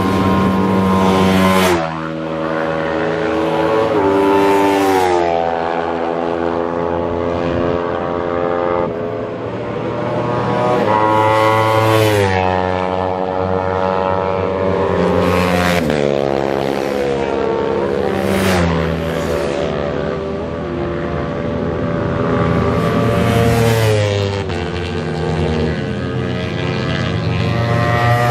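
Sport motorcycles racing past one after another on a circuit, engines revving high and changing gear. The pitch drops as each bike goes by, several passes in a row.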